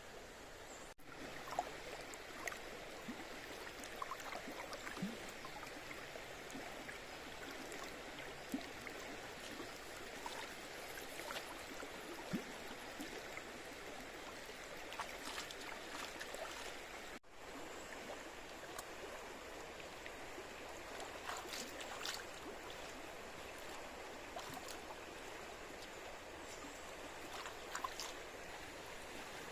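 A river running over rocks: a steady rushing babble with small gurgles and splashes. It breaks off for an instant twice, about a second in and just past halfway.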